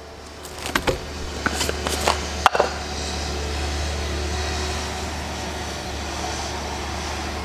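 Cordless drill running steadily, boring a half-inch hole through a plastic gas can. A few clicks and knocks of handling come in the first couple of seconds.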